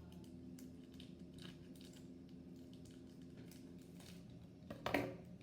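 Small plastic toy packaging being handled and opened, with faint crinkling and clicking and one louder crackle about five seconds in.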